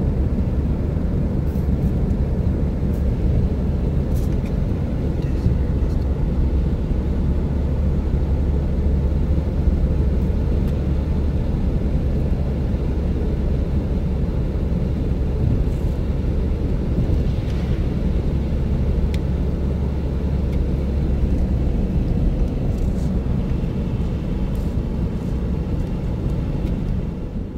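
Steady low rumble inside a moving car's cabin: engine and tyres running on a wet road.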